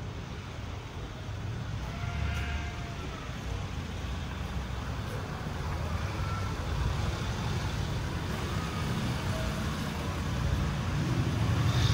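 Street traffic noise: a steady low rumble that grows louder near the end.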